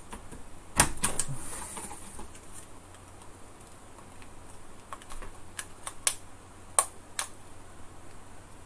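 Sharp plastic clicks and taps of a vintage calculator's case and circuit board being pressed and worked into place. The loudest click comes about a second in, with a short scraping rub after it, and a few scattered clicks follow later.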